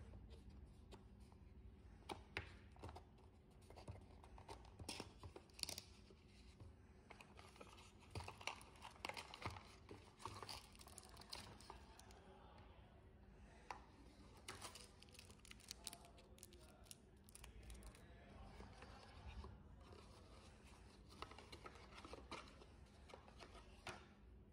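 Unboxing handling noises: cardboard packaging scraping and tapping on a tabletop, with plastic wrapping crinkling, as a dive watch's box parts and charging cable are taken out. The sounds come as irregular short scrapes, taps and rustles.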